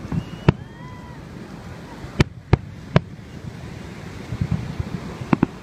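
Fireworks going off: single sharp bangs, a quick run of three bangs in the middle, then small clusters of pops near the end, over a steady rush of wind noise on the microphone.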